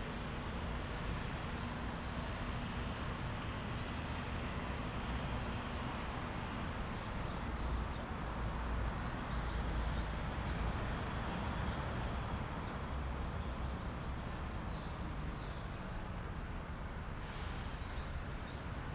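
Outdoor ambience: a steady low background rumble with small birds chirping now and then in short high notes.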